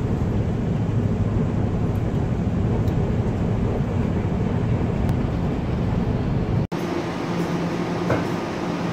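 Steady low rumble of a Puyuma Express tilting electric multiple unit, heard from inside the passenger car while it runs. About two-thirds through, a hard cut switches to the same train pulling out of a station platform: a steadier hum with a clear low tone.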